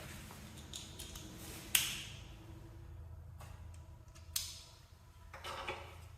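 Sharp clicks and knocks of metal parts and hand tools being handled while the tractor's nose piece is bolted on. The loudest knock comes a little under two seconds in and another just after four seconds, with a brief scrape near the end, all over a low steady hum.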